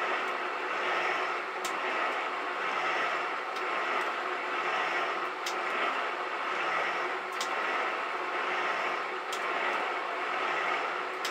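Elliott metal shaper cutting a taper on a steel bar, running steadily, with a sharp click repeating about every two seconds as the ram cycles through its strokes.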